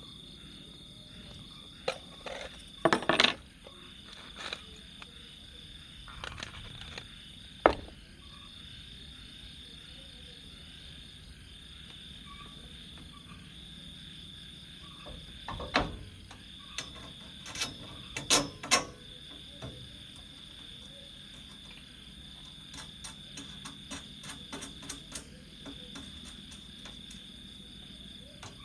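Insects trilling steadily in a high, continuous chorus, with scattered sharp knocks and clanks from thin metal frame poles being handled, the loudest around three seconds in, near eight seconds and around eighteen seconds, then a run of small ticks later on.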